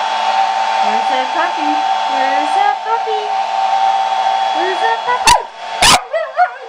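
Handheld hair dryer running with a steady whine, cut off by a couple of loud clicks about five seconds in. Over it a puppy whines in short rising and falling notes, which carry on after the dryer stops.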